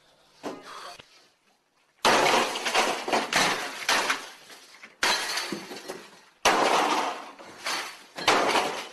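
Office computer equipment being smashed: a small knock, then four loud crashes of breaking and shattering glass, each starting suddenly and ringing out for a second or two before the next.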